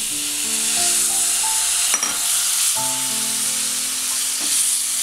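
Raw minced chicken and onion masala sizzling in hot sunflower oil in a kadai with a steady hiss, as a little water goes in and a spatula stirs it.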